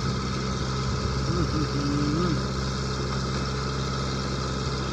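Steady, unchanging drone of a dompeng engine, a single-cylinder diesel driving a gold-mining suction pump, running continuously.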